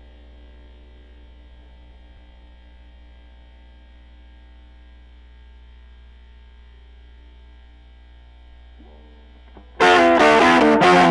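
Amplifier hum and buzz from a Dan Armstrong clear acrylic electric guitar plugged in and mostly idle, with faint notes ringing. Near the end a loud distorted riff on the guitar starts abruptly.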